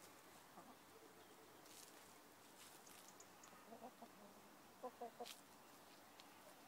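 Faint clucking of domestic chickens: a few short calls about four seconds in and another quick run about five seconds in, against an otherwise quiet background.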